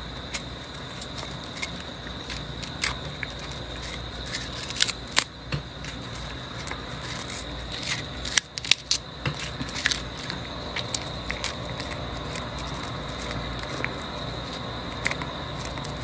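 Cat chewing a crunchy treat: irregular sharp crunches, the loudest bunched around the middle, over a steady background hiss with a faint high whine.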